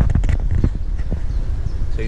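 Wind buffeting the microphone as a steady low rumble, with a few sharp knocks in the first half.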